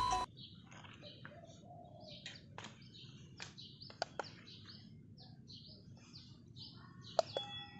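Faint birds chirping in the background, with a few sharp clicks in between. A Taffware wireless doorbell's tune cuts off just at the start, and a new chime tone begins near the end.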